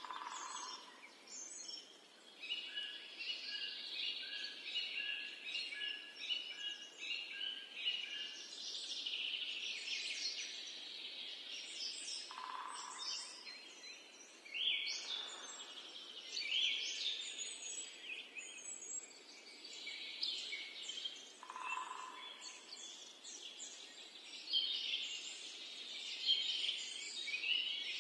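Several birds singing and calling at once, with many overlapping chirps and whistles. In the first several seconds one bird repeats a run of short, evenly spaced notes, and a lower call sounds three times.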